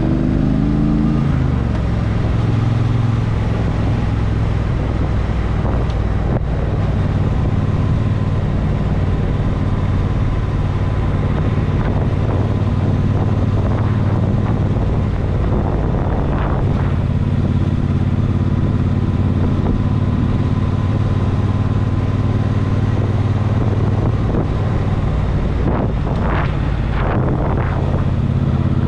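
A motor vehicle's engine running steadily on the move, its note falling just after the start and then holding even. A few brief whooshing sweeps come past the middle and twice near the end.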